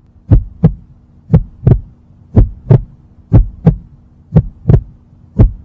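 Heartbeat sound effect: paired low thumps, lub-dub, repeating about once a second over a steady low hum.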